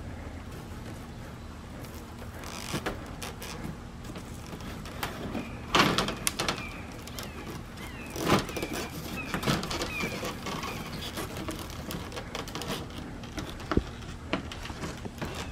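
A person clambering up a ladder onto a corrugated-metal treehouse roof: irregular knocks, scrapes and creaks of metal sheeting and wood, the loudest about six and eight seconds in, with a sharp knock near the end.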